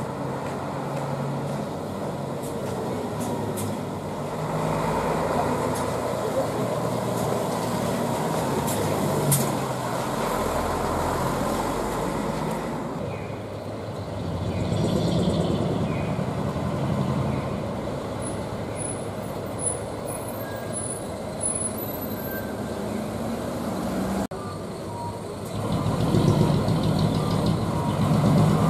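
Diesel engines of decorated medium-duty trucks moving slowly through an intersection, mixed with street traffic noise. Near the end the engine sound gets louder as a truck pulls close.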